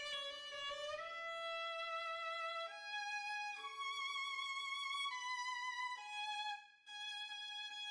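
Slow instrumental music: a melody of long held notes with vibrato, moving to a new pitch every second or so, with a brief break about six and a half seconds in.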